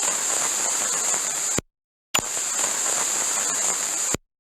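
Radio-frequency interference static: two bursts of crackling hiss, each about two seconds long with a short gap between, each starting and cutting off abruptly, with a strong high-pitched hiss on top.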